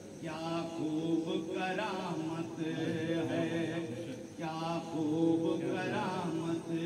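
Man singing a Sufi devotional manqabat through a microphone in long, drawn-out melismatic phrases, with steady low sustained tones underneath.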